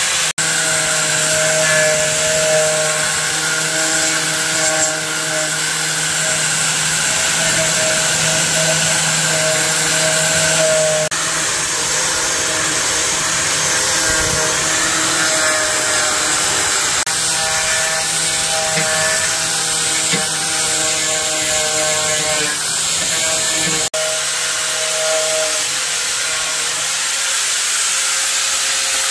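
A power tool's motor running steadily with a hum under a dense hiss; the sound changes abruptly a few times.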